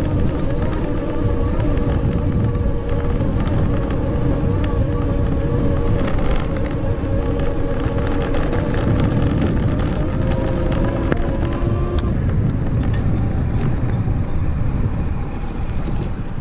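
48V 1000W rear hub motor of an e-bike whining steadily under throttle, over a loud rumble of wind and tyres on a gravel path. The whine fades out about twelve seconds in, while the rumble goes on.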